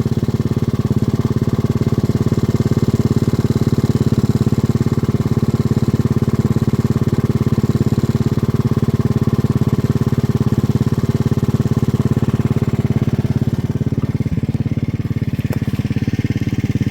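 Small gasoline engine of a backyard railroad locomotive running steadily at a constant speed, with rapid, even firing pulses.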